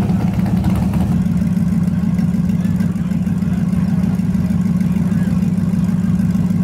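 Burnout pickup truck's drag-racing engine idling, a steady low rumble, as the truck creeps toward the start line.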